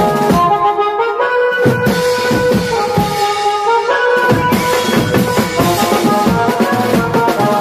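Music with a drum beat under held melodic notes that change from time to time.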